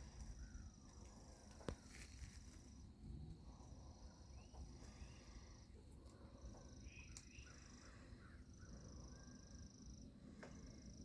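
Faint insect trilling, high-pitched, in repeated stretches of about two seconds with short gaps, with a few faint bird chirps. A single sharp click about two seconds in.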